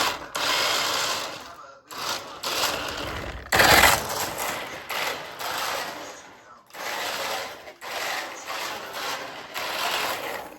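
Electric motor and gears of a 1:14-scale RC drift car buzzing in repeated bursts of about a second, stopping and starting with its all-or-nothing throttle. The loudest burst comes a little before four seconds in.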